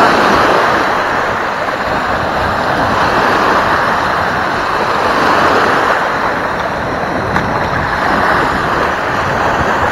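Loud steady rushing of wind on the microphone mixed with small waves breaking on the beach.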